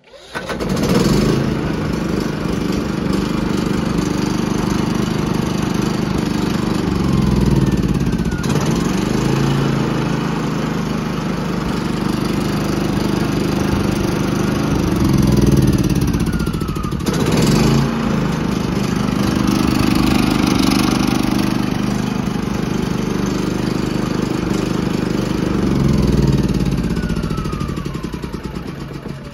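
Firman W3650iE inverter generator's gasoline engine starting at once and running on choke. Its speed rises and falls a few times, then the sound fades away near the end as the engine dies. This is the fault of a generator that runs only with the choke on and stalls once the choke is removed, a sign of a fuel-supply problem such as a clogged fuel line or dirty carburetor.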